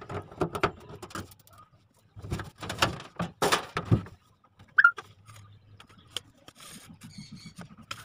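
Sheet-metal back cover panel of a top-loading washing machine being pulled off: a run of clattering knocks and rattles, then one short, high squeak of metal rubbing, then faint handling noise.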